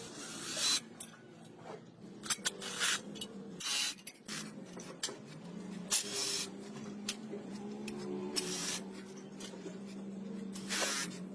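Several short hissing bursts of spray, each under a second long, spaced irregularly a second or two apart.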